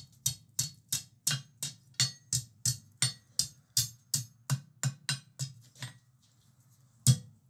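Hand hammer striking the hot, split end of a steel bar on an anvil, knocking the two split prongs apart: a steady run of blows at about three a second. The blows pause for about a second near the end, then start again.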